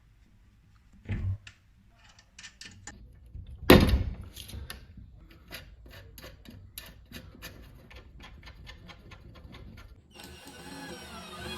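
Workshop handling sounds: a thump, then a loud knock, then a run of light clicks and ticks. Near the end a power drill starts running.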